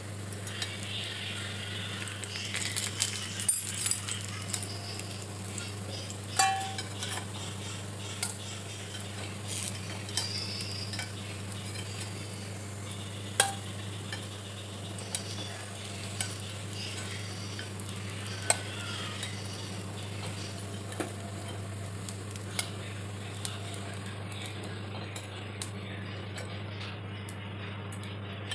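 Paniyaram frying in oil in a multi-cup paniyaram pan, a steady sizzle, while a metal spoon scrapes and clinks against the pan's cups as the cooked paniyaram are turned and lifted into a steel bowl. The clinks come every couple of seconds over a steady low hum.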